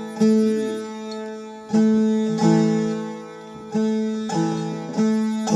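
A plucked string instrument playing a slow melody. Each note is struck sharply and left to ring out and fade before the next.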